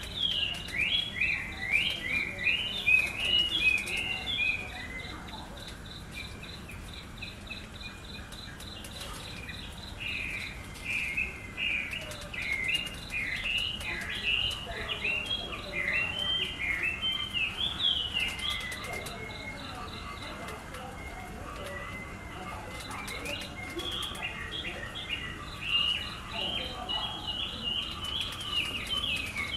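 Small birds chirping in quick runs of short notes, with an insect's even, pulsing trill coming and going underneath.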